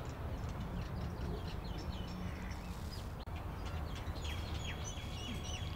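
Small birds chirping and twittering in quick, short high calls that grow busier about four seconds in, over a low steady outdoor rumble.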